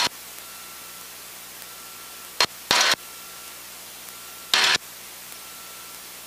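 Short bursts of radio static on the cockpit headset audio feed, heard three times (a little after two seconds in, just before three seconds, and around four and a half seconds), over a steady low hiss.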